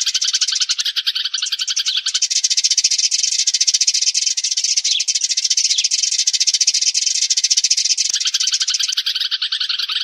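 A flock of sparrows chirping rapidly and without a break, many chirps a second: a sparrow flock-calling lure recording of the kind played to draw sparrows in for trapping. Around two seconds in the lower-pitched chirps drop out and only the higher ones go on, until the lower chirps come back about eight seconds in.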